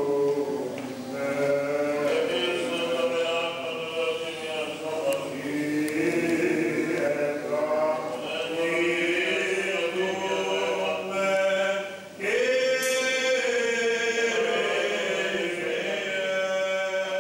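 Greek Orthodox Byzantine chant: voices singing long, slowly moving melismatic phrases with held notes over a steady low drone. The singing breaks off briefly about twelve seconds in and a new phrase begins.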